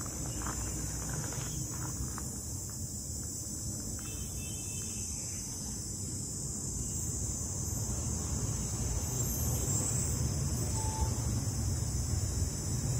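Steady high-pitched chirring of insects over a low, even rumble.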